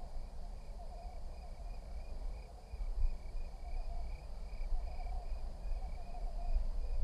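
Insects chirping outdoors: a regular high chirp about two or three times a second over a steady high-pitched drone, with a low rumble underneath.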